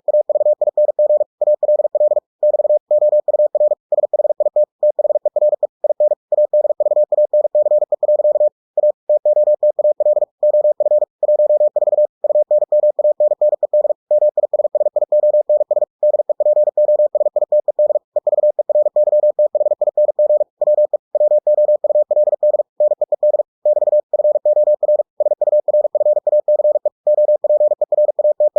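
Morse code (CW) generated by ebook2cw at 45 words per minute: one steady mid-pitched tone keyed on and off in very fast dots and dashes, with slightly longer gaps between words.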